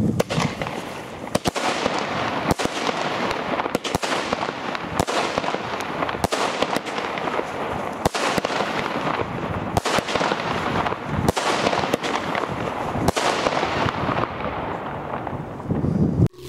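Xplode Lowrider consumer firework battery (about nine shots, 52 g net explosive content) firing. A series of sharp bangs comes roughly once a second over a steady noisy hiss, and it cuts off suddenly near the end.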